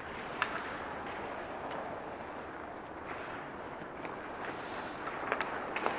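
Ice hockey rink ambience during play: a steady noisy wash of the arena, with a few sharp clacks of sticks, puck and boards, one about half a second in and several near the end.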